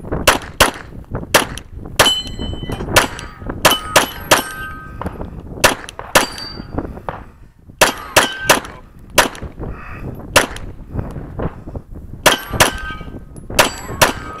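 Glock 34 9mm pistol firing a fast string of shots, many in quick pairs, at steel targets; hits on the steel plates ring out in a metallic clang after the shots.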